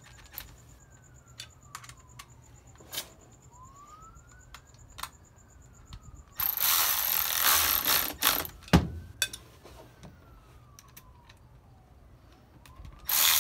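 Cordless electric ratchet running in two bursts of about two seconds, about six seconds in and again near the end, snugging the bolts of a two-piece brake rotor ring to its hat. Light metallic clicks of bolts and washers come in between, and a siren rises and falls faintly in the distance.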